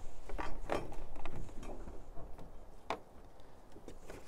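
Handling noise of unpacking: hands moving a coiled cable and knocking against a moulded plastic packaging tray, a few scattered clicks and knocks with light rubbing.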